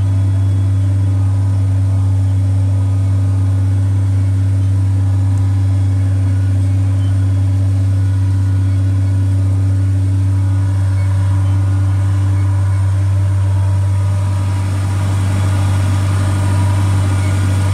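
Ford TW-35 tractor's six-cylinder diesel engine running steadily under load, pulling a disk harrow, heard from inside the cab as a steady low drone.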